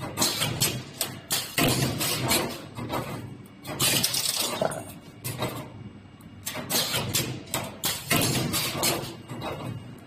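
2D CNC wire bending machine forming fan guard ribs: repeated bursts of metallic clattering and whirring, each lasting a second or so, with short lulls between cycles.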